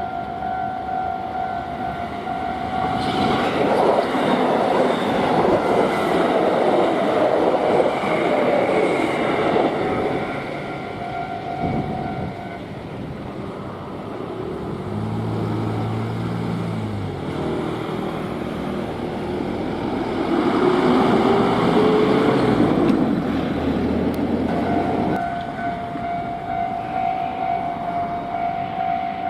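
A Japanese level-crossing warning bell rings its steady two-tone clang while an electric train passes over the crossing, with a rush of wheel and rail noise. The bell stops partway, and a second electric train passes with its traction motors giving a rising whine. The bell starts ringing again near the end.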